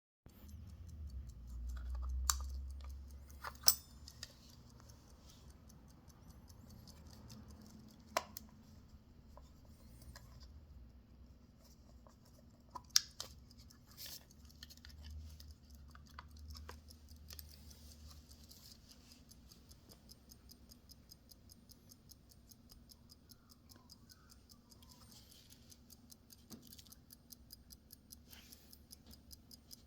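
An old travel alarm clock being handled, with a few sharp clicks and knocks, then its movement ticking quickly and evenly from a little past halfway on.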